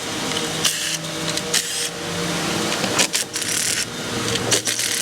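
A power ratchet whirring in several short bursts as it backs out fasteners, with light metal tool clicks between the runs.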